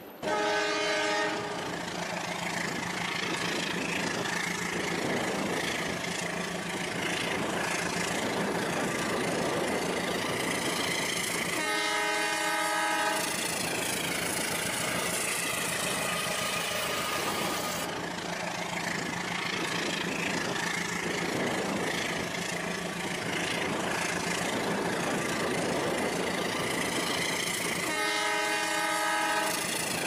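Train horn sounding three times, each a chord of several steady tones lasting about a second, over continuous rushing train running noise with a low steady hum.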